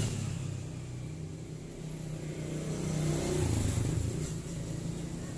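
Steady low hum of an engine running in the background, swelling slightly midway.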